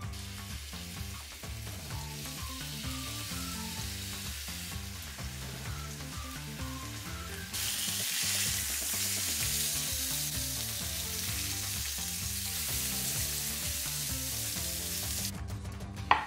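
Seasoned chicken thighs sizzling on a hot ridged grill, the sizzle louder from about halfway in, over background music with a steady beat. A short sharp clink near the end.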